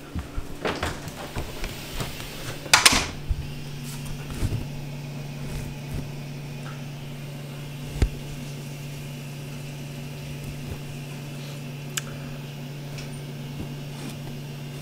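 Some clattering handling noise in the first three seconds, then the steady low hum of a running kitchen appliance, with two single sharp clicks later on.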